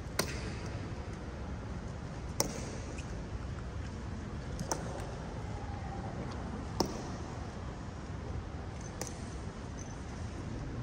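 Honor guards' boot heels striking a stone floor in a slow march: five sharp clacks, evenly spaced about two seconds apart, over a steady background hum of the hall.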